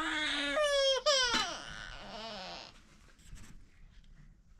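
A baby crying: a few loud, high wails whose pitch swoops and falls sharply, dying away about two and a half seconds in.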